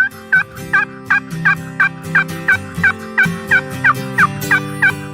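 Music: held chords under a quick repeated note that bends in pitch, about three times a second.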